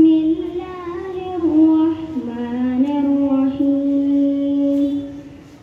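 A boy's voice chanting a Quran recitation (tilawat) into a microphone, in melodic phrases. The pitch steps down about two seconds in, then he holds one long note that fades away near the end.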